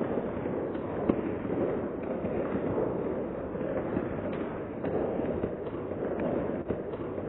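Audience applauding: a steady patter of many hands clapping.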